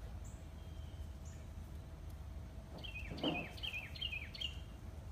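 A bird calling about three seconds in: a quick run of about six short chirps, each sliding downward, over a steady low background rumble. A soft thump sounds at the start of the chirps and is the loudest moment.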